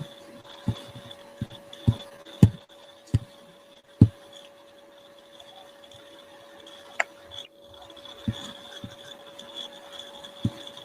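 Dull low thumps at irregular intervals, most of them in the first four seconds, over a steady electrical hum with a faint high whine.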